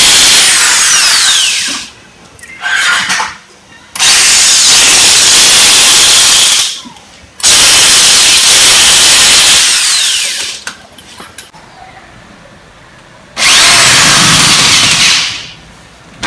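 Corded electric drill run in four bursts of two to three seconds each, driving screws through a steel curtain-rod bracket into plugged holes in the wall.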